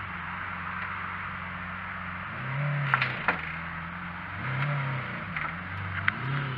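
Lamborghini Aventador V12 idling as the car creeps up onto a transporter ramp, with the revs rising and falling briefly three times under light throttle. A few sharp clicks come about three seconds in and again near the end.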